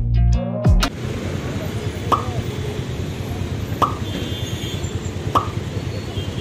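Guitar music cuts off about a second in, giving way to steady street traffic noise. Three short, sharp pops stand out over it, about a second and a half apart.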